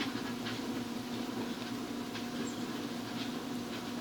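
Faint light clicks and scrapes of hand work on an angle grinder's open gear head, where grease is being worked onto the gears, over a steady low hum.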